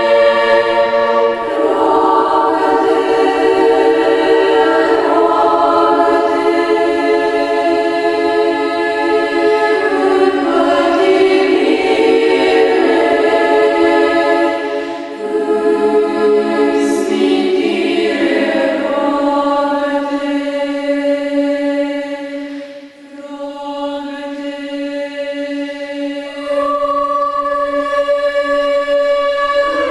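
Female choir singing a cappella in held chords, Orthodox sacred chant. The sound thins and softens about three-quarters of the way through, then swells back to full voice.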